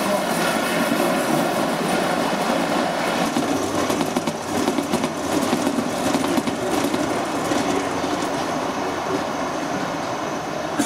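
Gauge 1 model trains running on the layout's track, a steady rolling rumble of wheels on rail, with a run of light clicks about halfway through.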